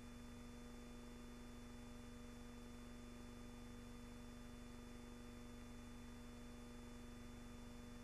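Near silence: a steady faint hum with hiss, with no gunfire, explosions or voices.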